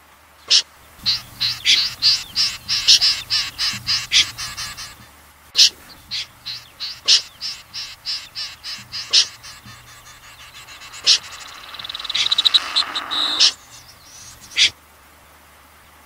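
Recorded snipe calls, the kind used to lure a flock: short, sharp, high calls, sometimes single and sometimes in fast runs of about four a second, with a quick rattling trill near the end.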